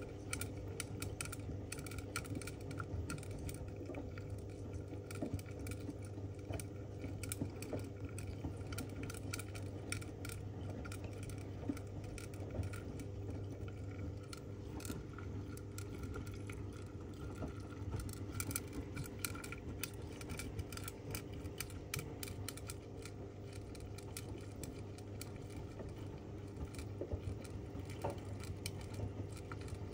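Zanussi ZWF16581W front-loading washing machine in its main wash: the drum motor gives a steady low hum while the wet laundry sloshes as it tumbles. Frequent light clicks and rattles run through it as items knock against the drum and door glass.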